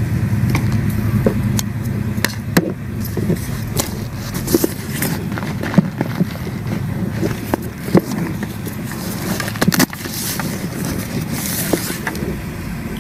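Rustling and handling noise close to a body-worn camera's microphone, with scattered sharp clicks and knocks as a backpack and its contents are handled.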